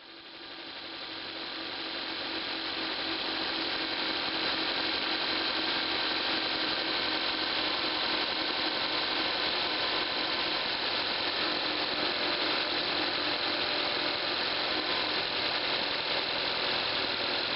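2003 Honda Accord's 2.4-litre four-cylinder engine idling, heard close up at the engine cover: a steady mechanical running sound that swells up over the first couple of seconds, then holds even. No power steering pump whine is heard; the pump's inlet O-ring has been replaced.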